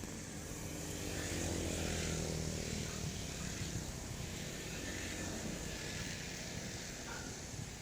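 A motor engine passing by, growing louder and then fading, its pitch falling as it goes.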